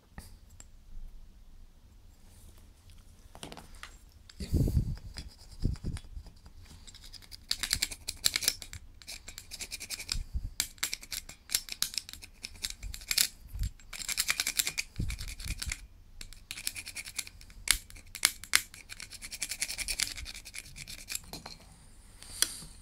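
Small screwdriver tip scraping white coating off the strain gauge on an aluminium load-cell bar, in quick runs of short, hissy scratching strokes with brief pauses. A few dull knocks come about five seconds in.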